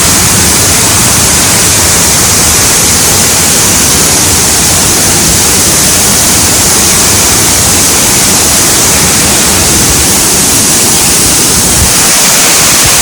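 Small waterfall rushing, a loud steady wash of falling water close to the microphone.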